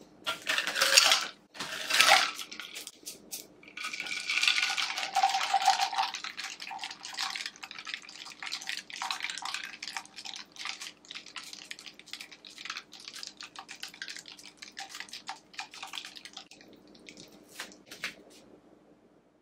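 A glass pour-over coffee server and its paper filter being handled: a couple of loud rustles and clinks at the start, a longer rustling stretch a few seconds in, then scattered small clicks and drips that thin out near the end, over a faint steady hum.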